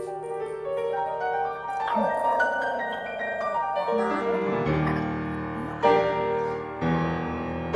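Solo piano music: a slow run of notes and chords, with two louder chords struck near the end.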